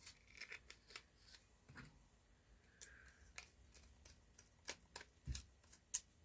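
Scattered light clicks and scrapes of a screwdriver and small screws being handled while a vintage light switch is screwed together, with a dull knock a little past five seconds.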